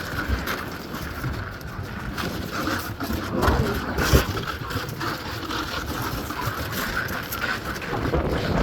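Wind buffeting the microphone: an uneven rushing rumble that swells and dips, with brief gusts, loudest about three and four seconds in.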